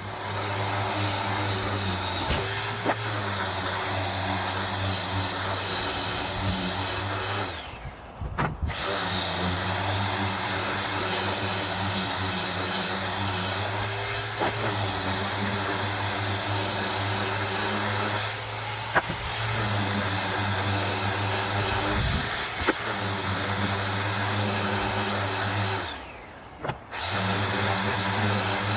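Electric power sander running steadily on the wood of a cabinet face frame, stopping briefly about eight seconds in and again near the end.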